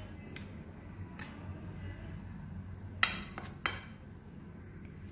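Kitchenware being handled: a few light clicks, then two sharp knocks about three and three and a half seconds in, over a steady low hum.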